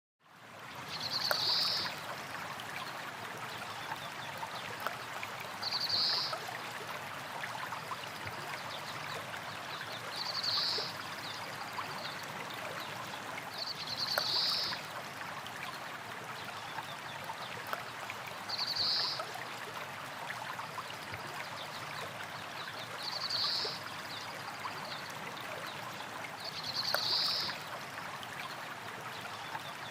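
Small stream of water flowing over rocks, a steady rushing and gurgling that fades in at the start. A short high-pitched sound recurs over it about every four seconds.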